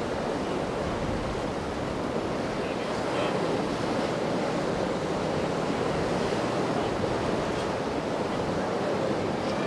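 Rough, churning inlet water rushing and splashing, a steady noise of surf and chop, with wind on the microphone.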